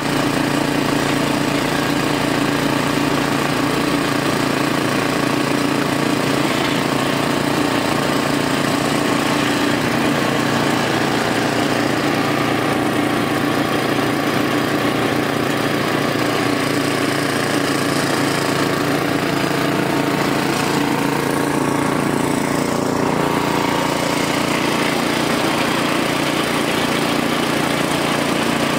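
Motor-driven sugarcane juice crusher running steadily, its engine turning the rollers with a constant, unchanging note.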